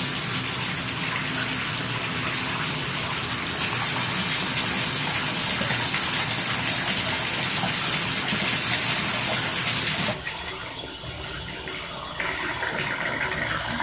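Tap water running steadily into a bathtub, the stream falling onto a wet cat and the tub floor. The sound drops abruptly about ten seconds in and comes back louder about two seconds later.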